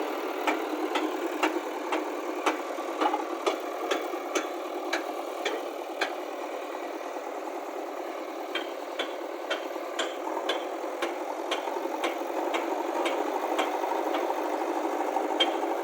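Tractor engine running steadily, with sharp ticks about twice a second.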